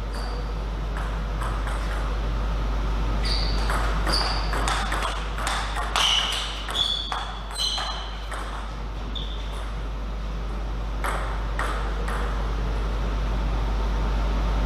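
Table tennis ball clicking off paddles and table, each hit with a short high ping: a quick run of hits in the middle, a few more later. A steady low hum runs underneath.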